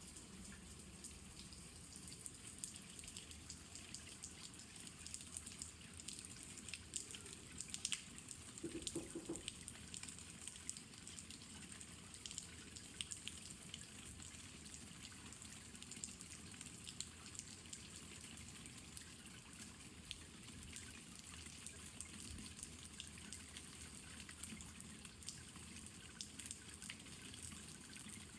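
Steady light rain falling, with many separate drops ticking and dripping.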